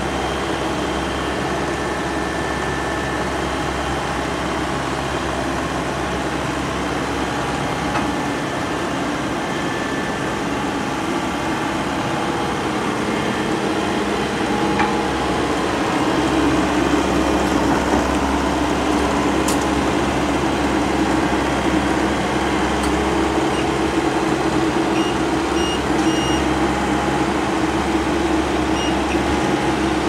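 Fieldking tracked combine harvester's diesel engine running steadily as the machine crawls up onto a trailer, getting louder about halfway through. A few short high beeps sound near the end.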